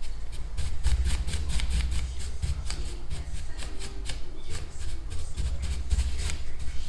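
A paintbrush dabbing and stroking over a freshly sealed joint between gypsum stone-effect tiles, feathering out the sealant: a quick run of short scratchy brush strokes, about four or five a second, over a low rumble.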